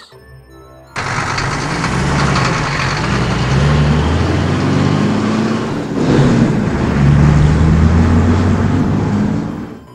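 Heavy truck engine cutting in about a second in and running with a deep rumble, its pitch rising and falling as it revs. It dips briefly midway and dies away near the end.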